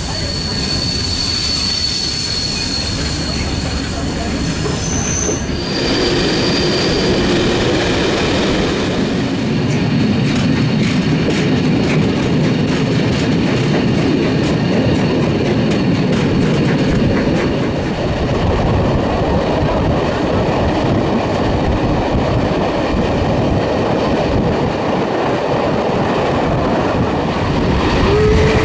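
Wheels of a steam-hauled passenger train squealing on a curve for about the first six seconds, a few steady high tones together, then the loud, steady rumble of the train running.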